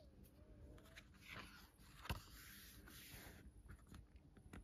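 Faint rustle of a picture book's paper page being turned, with one light tap about two seconds in.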